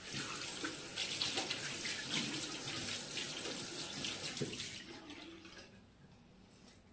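Bathroom tap running into a sink, with splashing as a face is rinsed off; the water stops about five seconds in.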